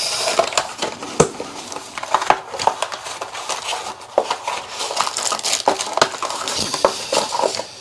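A small cardboard accessory box being opened and handled by hand: cardboard and paper rustling and scraping, with many irregular light clicks and taps.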